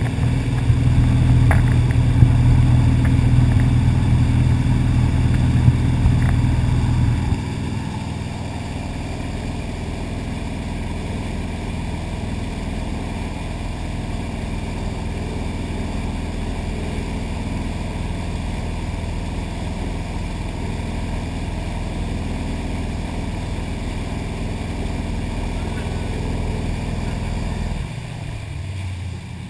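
Wakeboard boat's engine running steadily at towing speed under the rush of its churning wake. It is louder for the first several seconds, then settles to a lower, even level.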